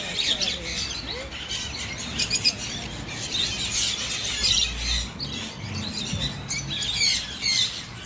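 A flock of small aviary birds chirping and chattering, with many short high calls overlapping throughout.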